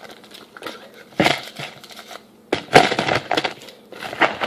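An opened instant ramen packet being emptied: the plastic wrapper crinkles and the dry noodle block crunches in a few short, irregular bursts.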